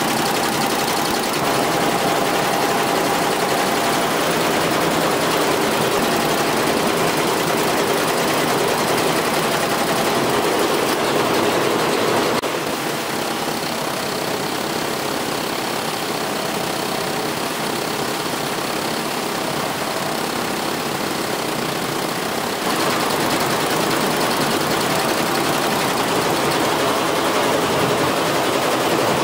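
Multi-head computerized embroidery machine running, its needle heads stitching continuously with a steady, dense mechanical clatter. It drops slightly in level about twelve seconds in and comes back up about ten seconds later.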